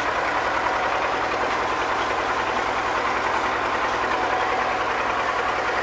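An engine running steadily at idle, with an even, rapid pulsing and no change in speed.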